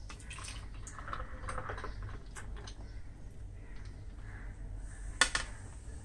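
Raw mango sharbat poured from a glass jug over ice cubes in a glass tumbler: small clinks and splashing, then one sharp glassy knock about five seconds in.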